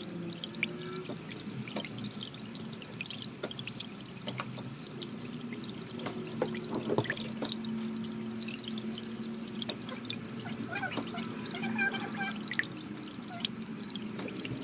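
Soft background music of long held tones, with many light, sharp clicks scattered through it.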